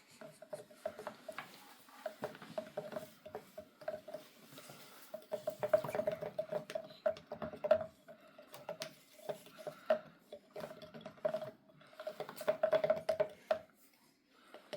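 A spoon stirring the baking-soda mixture inside a model volcano, clinking and scraping against the container in quick, uneven taps, each with a short ring. The stirring stops about a second before the end.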